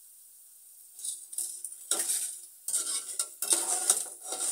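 A metal utensil scraping and clattering against a frying pan in irregular strokes, starting about a second in, as prawn crackers are stirred and turned in shallow hot oil.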